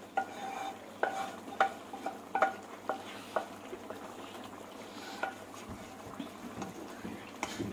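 Spatula scraping thick white sauce out of a non-stick pan into a pan of sauce, with irregular clicks and scrapes of utensil and pan edges against each other about once a second, over a faint sizzle of the sauce cooking on a low flame.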